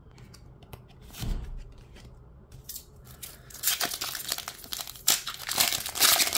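Foil wrapper of a Pokémon TCG Paradox Rift booster pack crinkling and tearing as it is ripped open by hand, loud and crackly over the last three seconds. A soft thump about a second in.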